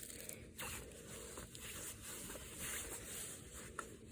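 Faint handling noise of a Blu-ray case and its packaging: soft rasping and rustling with a few light clicks.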